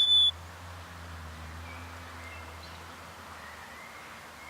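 A bird's clear whistled note, the lower second note of a two-note falling call, ending about a third of a second in. Then faint outdoor ambience with a low steady hum and faint, distant bird calls.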